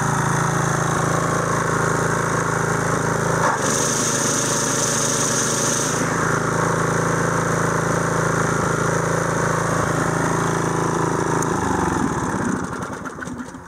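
DR Trimmer Mower 6.75 Premier's engine running steadily on a test run with a newly fitted V-belt. About four seconds in, a higher whirring hiss joins for about two seconds. Near the end the engine is shut off and its pitch falls as it winds down.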